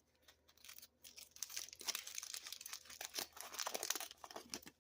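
Aluminum foil being crinkled and peeled open by hand, a dense run of fine crackles and crumples that starts about a second in.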